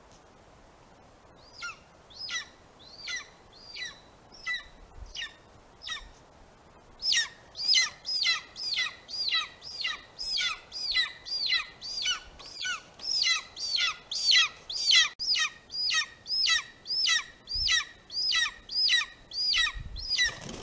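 Golden eagle calling a long run of high yelps, each dropping steeply in pitch, about one and a half a second. The calls start softly a couple of seconds in and grow much louder from about seven seconds on.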